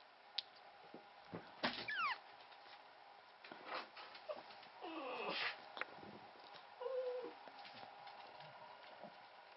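Two-week-old Pomeranian puppy making a few small squeaky whimpers: a short squeal falling in pitch about two seconds in, a longer falling whine around five seconds, and a brief low whimper near seven seconds.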